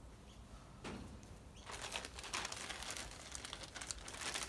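Plastic bag of cotton makeup-removal pads crinkling as it is picked up and handled: a dense run of crackles starting a little under two seconds in.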